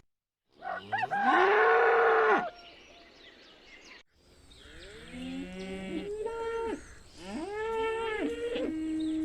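Cattle mooing: one loud, drawn-out moo, then after a cut a series of shorter moos from more than one animal, some overlapping.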